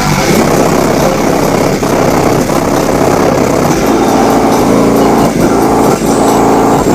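Car subwoofer system playing bass loudly inside the car, with the untreated roof and panels buzzing and rattling along with it.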